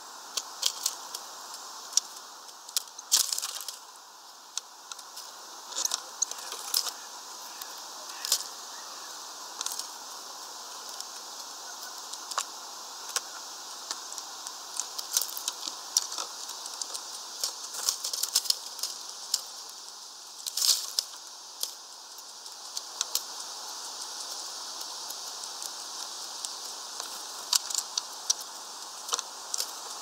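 Irregular sharp clicks and rattles, some in quick clusters, of white wagtails pecking and shuffling through sunflower seed husks on a plastic feeder tray, over a steady background hiss.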